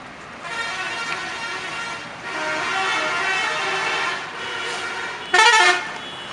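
Telolet bus horn, a multi-tone musical air horn, sounding in a series of blasts. The first runs about a second and a half, the next about two seconds, then a weaker one follows, and a short, much louder blast comes near the end.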